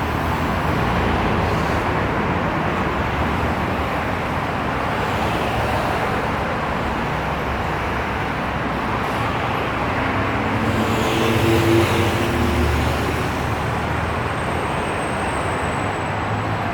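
Steady city road traffic noise, with one vehicle passing a little louder about two-thirds of the way through.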